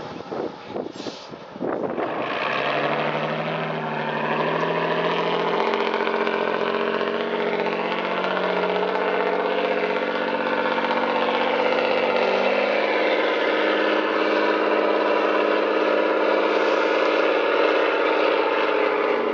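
Off-road trial truck's diesel engine running hard under heavy load as it climbs a steep slope, loud and steady, its pitch shifting a couple of times. The first two seconds are choppy and broken before the engine sound sets in.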